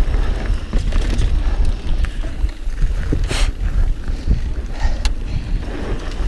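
Mountain bike riding a rough dirt trail: steady low wind rumble on the camera microphone with tyres rolling over dirt and rock and scattered knocks and rattles from the bike. A short hiss a little over three seconds in.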